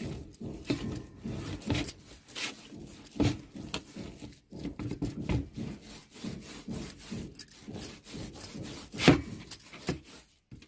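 Hands kneading and rolling a soft spinach dough on a plastic plate: irregular rubbing and pressing strokes, with one louder knock about nine seconds in.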